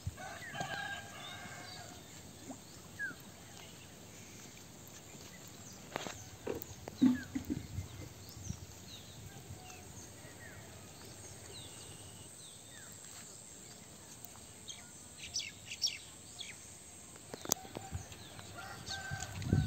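Rural pond-side ambience: a chicken calls at the start and again near the end, with small birds chirping. A few knocks and splashes come from handling at the plastic tank in the water, the loudest a third of the way through.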